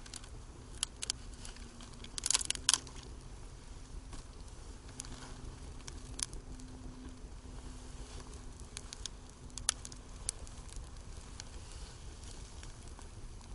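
Small campfire of dry twigs crackling, with scattered sharp pops and a quick run of louder cracks about two seconds in.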